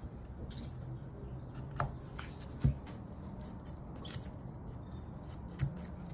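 Small folding knife cutting through the fuses between the cardboard tubes of a firework cake: a few short, sharp snips and clicks, the loudest about two and a half seconds in.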